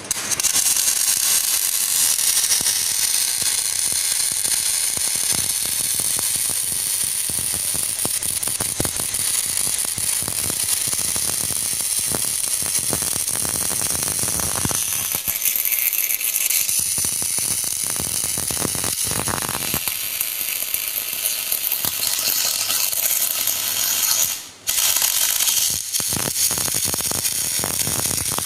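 CO2 MIG welding arc from a Memco Memig 400 A inverter welder crackling steadily as a bead is run. The arc breaks off briefly about 24 seconds in and is struck again.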